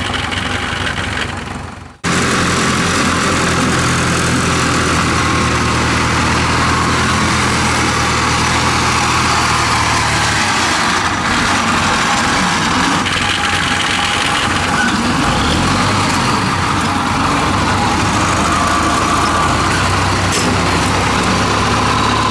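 Engine of a tracked rice-hauling cart running steadily as the cart crawls on its tracks under a load of rice sacks. The sound drops out briefly about two seconds in, then carries on, its low engine note shifting around the middle.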